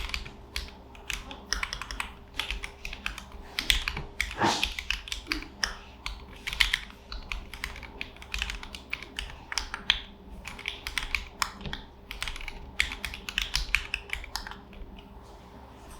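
Typing on a Keychron hot-swap mechanical keyboard: a continuous, irregular run of key clacks, several a second.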